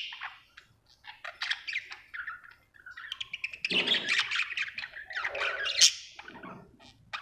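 Budgerigar chirping in short high bursts, with a few pauses and a denser stretch of chirps in the middle.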